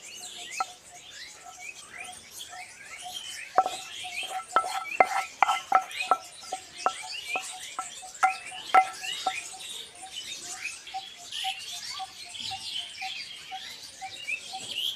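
Birds chirping outdoors, one of them repeating a short call two or three times a second. A run of sharp taps stands out between about four and nine seconds in.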